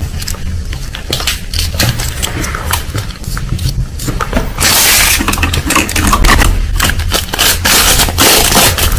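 Small plastic toys handled with light clicks and taps over a low steady hum; about halfway through, a clear plastic wrapper starts crinkling loudly as it is unwrapped.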